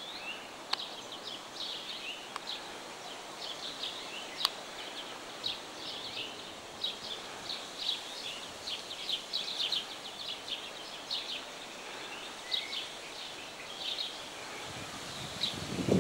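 Small birds chirping over and over above a steady background hiss, with a few sharp clicks; a louder rumbling noise comes in near the end.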